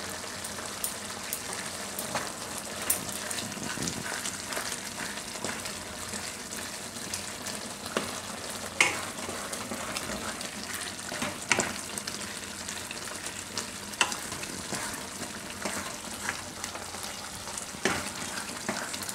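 A spatula stirring besan (chickpea flour) into a thick tomato-and-spinach gravy in a kadai, scraping and knocking against the pan at irregular intervals, over a steady sizzle of the gravy cooking.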